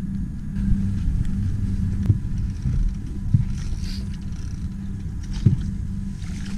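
Suzuki outboard motor running at a low, steady speed: an even low hum. A few short knocks stand out over it.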